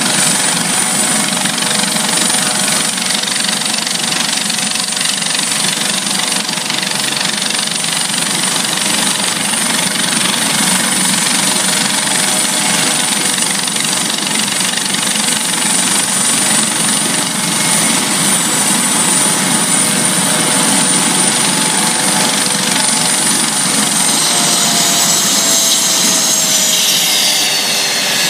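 Maryland State Police Eurocopter AS365 Dauphin twin-turbine helicopter running on the ground with its rotor turning: a steady high turbine whine over rotor noise. About 24 seconds in, the whine and the lower tones start falling in pitch as the engines wind down.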